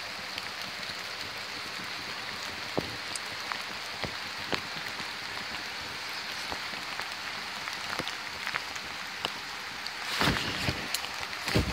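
Steady rain falling, with scattered sharp drop taps, over the rushing of a rain-swollen creek. A louder rustle comes about ten seconds in.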